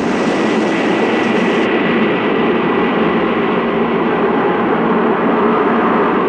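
Loud, steady rushing roar of wind, a dramatic sound effect of a gale blasting out of the just-opened barrow.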